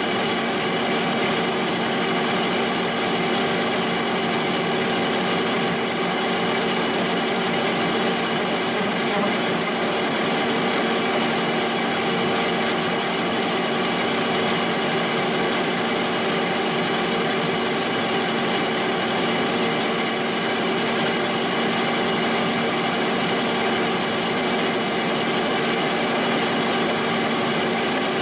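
Milling machine running steadily, its milling cutter cutting away the cast bearing support inside a gearbox housing, with a constant whine and cutting noise that does not let up.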